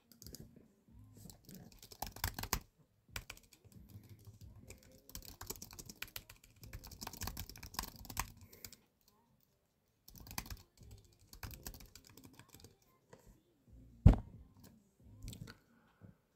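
Typing on a computer keyboard: irregular runs of key clicks through most of the first nine seconds and a shorter run around ten seconds in, with one sharper, louder knock near the end.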